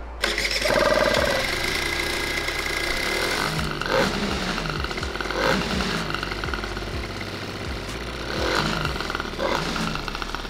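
Aprilia SR50's 50cc two-stroke single-cylinder engine running, with a few brief rises in loudness.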